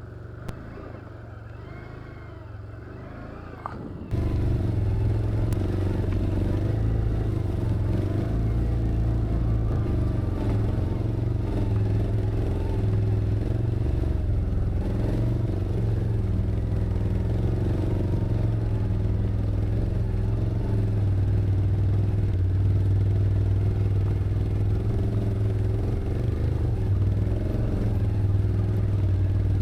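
An ATV engine running as the machine rides along the trail. It is quieter at first, then jumps abruptly louder about four seconds in and stays steady after that.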